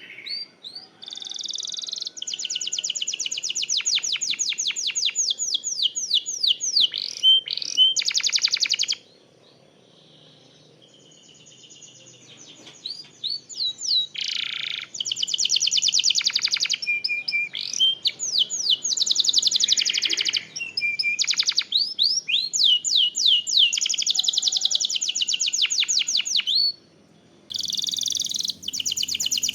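A domestic canary singing in long, fast trills (rolls) of rapidly repeated high notes, phrase after phrase, with a pause of about three seconds about a third of the way in and a brief break near the end.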